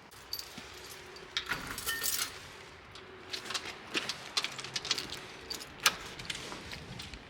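Scattered clicks and light clattering knocks over a faint steady hum.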